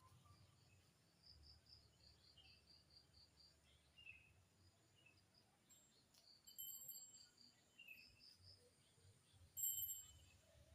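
Faint insect chirping in short runs of evenly spaced pulses, with scattered short chirps in between. A brief, louder high-pitched call comes near the end.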